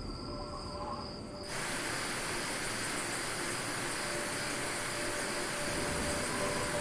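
A steady, dense insect chorus that starts suddenly about a second and a half in, over soft sustained musical tones.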